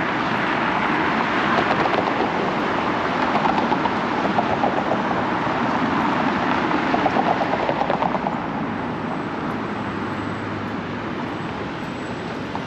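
City street traffic: a motor vehicle passes close by with a fast rattle in its noise, louder for the first eight seconds or so, then fading. A steady low hum remains near the end.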